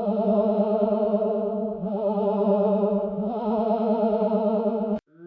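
Ghost moan sound effect: a long, low wailing voice-like tone held steadily with a slow wavering vibrato, cutting off abruptly near the end.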